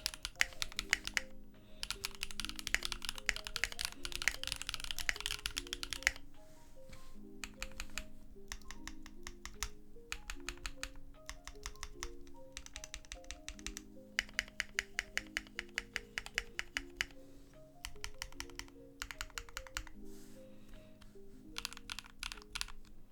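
Typing on a mechanical keyboard with Zuoce Macaron linear switches in an aluminium, O-ring gasket-mounted CannonKeys Bakeneko65 with PBT keycaps: fast runs of keystrokes alternate with slower single presses, over soft background music.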